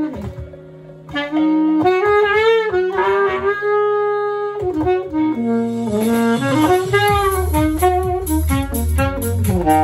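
Saxophone playing a melody in phrases, picked up by a wireless clip-on microphone and played through a small speaker, over a backing track whose bass line comes up strongly about six seconds in. The playing pauses briefly just after the start.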